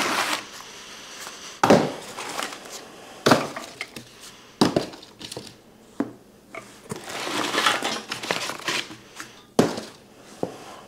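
Cardboard packing being pulled out and handled while unpacking a shop crane's box: rustling and scraping, with several sharp knocks as pieces are pulled free, set down and the parts inside shift.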